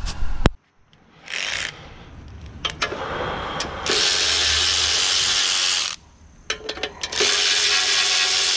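Power wrench running in two steady bursts of about two seconds each, with a short burst before them, loosening the fasteners to take apart a mower's blower fan.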